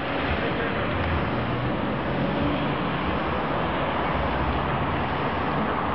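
Steady street ambience: a constant wash of traffic and city noise with a low rumble underneath.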